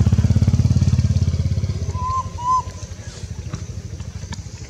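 An engine running with a steady low pulse, loud at first and fading after about two seconds. Two short high chirps come about two seconds in.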